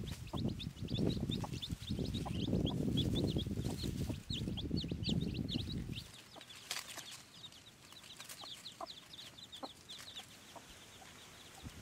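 Domestic chicks peeping in quick high chirps, several a second, with a hen clucking among them. A louder low sound runs underneath for the first half and cuts off abruptly about six seconds in. The peeping thins out near the end.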